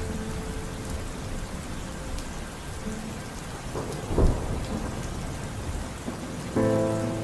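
Steady rain with a brief, loud thunderclap about four seconds in. A low held musical tone starts near the end.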